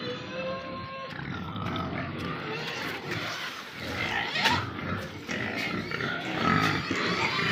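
Pigs squealing in chorus, the squeals growing louder toward the end.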